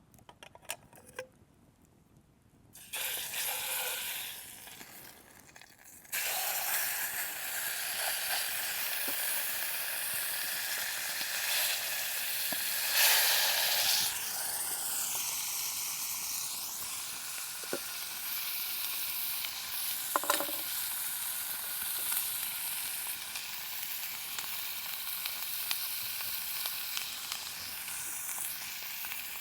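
Steak sizzling in a hot pan over a campfire. The sizzle starts about three seconds in, dies back, then jumps to a loud, steady hiss about six seconds in as the meat goes fully into the pan, with small crackles through it.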